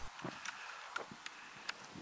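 Faint open-air quiet with five or six light, sharp ticks and crunches scattered through it.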